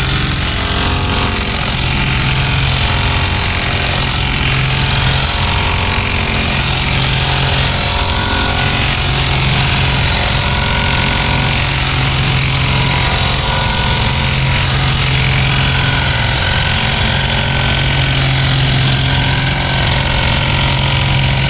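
Motorhome engine idling steadily with a constant low hum, running while the air suspension is pumped back up.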